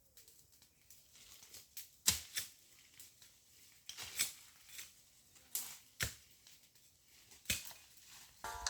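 Irregular sharp cracks and clicks, about a dozen spread unevenly, with faint rustling between them.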